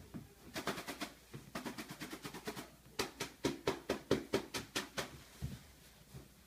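Puppy pawing and digging at a fabric beanbag: runs of quick thumps and scratches, about four or five a second, in three bursts.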